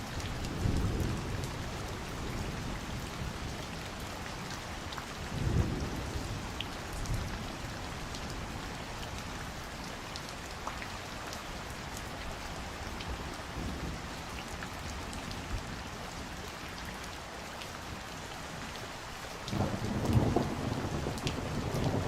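Steady summer rain falling, with scattered drops ticking close by. Low rumbles of thunder swell briefly at the start and about five seconds in, and a longer roll comes near the end.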